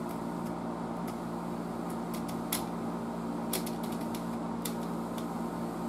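Rotary line-voltage selector switch on a 1936 Triplett 1210A tube tester clicking from position to position as it is turned to set the line voltage. It makes a string of irregular clicks, several close together two to four seconds in, over a steady low hum.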